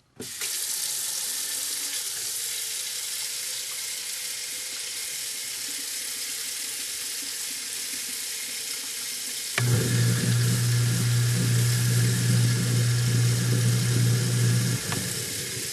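Tap water running into a kitchen sink. About two-thirds of the way through, a click and the garbage disposal motor starts with a steady low hum, runs for about five seconds, then shuts off while the water keeps running.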